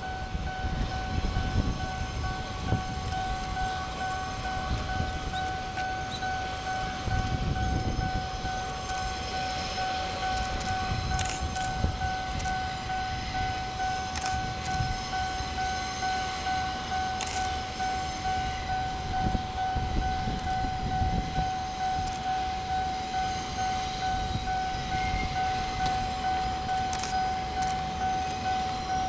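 Freight train of loaded limestone hopper wagons rolling past, with low rumbling that swells and fades as the wagons go by and sharp clicks from the wheels. A steady high ringing tone that pulses about twice a second sounds throughout.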